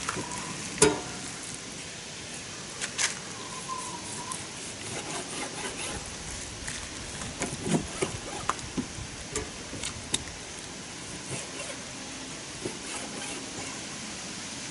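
Large butcher knife cutting bear meat on a plastic cutting board: scattered knocks and scrapes of the blade on the board over a steady background hiss.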